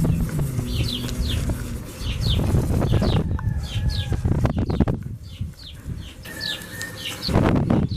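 Toothbrush scrubbing toothpaste on a plastic headlight lens, in uneven back-and-forth strokes, with short high falling chirps repeating throughout.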